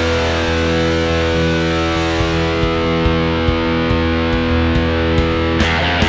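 Overdriven electric guitar, a Fender Stratocaster played through a Blackstar HT Club 50 valve amp head, playing rock over a backing track with a steady drum beat. Long held notes ring until near the end, when busier playing starts.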